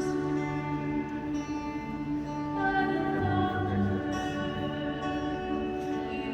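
Hymn music with long, held notes that change every second or two, with a singing voice and its accompaniment.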